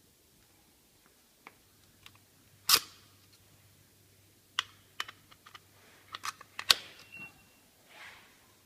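A series of sharp clicks and knocks: one loud click, then a cluster of smaller ones, with a short high beep about seven seconds in.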